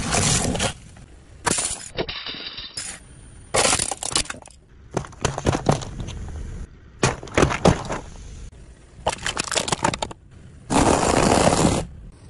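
Objects being crushed under a car tyre: plastic cups full of water beads and other soft and crunchy items crackling, cracking and splatting as they burst. The sound comes in a string of about eight short, separate bursts, with the longest near the end.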